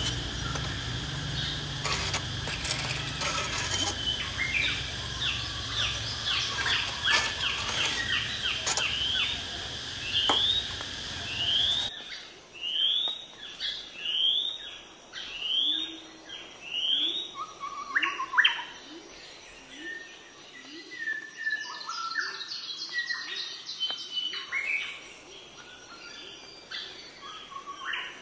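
Small birds chirping: a long run of short rising chirps repeated about once a second or faster, with other calls mixed in. A steady hiss and low rumble sits under the chirps and stops abruptly about twelve seconds in.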